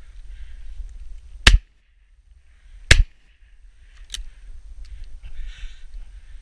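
Two shotgun shots about a second and a half apart from a Baikal IZH-27EM over-and-under, one from each barrel, followed by a fainter click about four seconds in.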